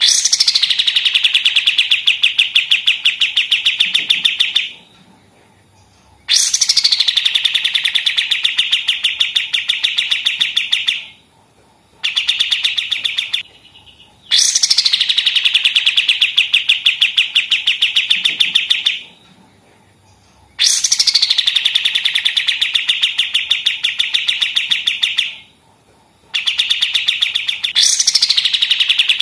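White-shouldered triller (kapas tembak) singing its rapid 'machine-gun' song. Each phrase of a few seconds is a fast, even string of repeated notes that opens with a quick downward sweep. The phrases are separated by short pauses, five times over.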